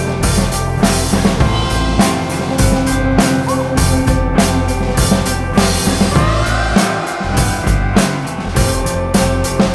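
Background music with a steady drum-kit beat of kick and snare under sustained instrument tones, with a sliding note about two-thirds of the way through.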